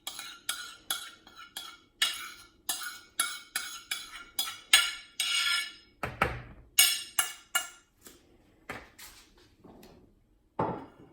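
A spoon knocking and clinking against a bowl as wet mashed sweet potato and flour are spooned together, about two knocks a second for the first six seconds, then a few scattered knocks with pauses between them.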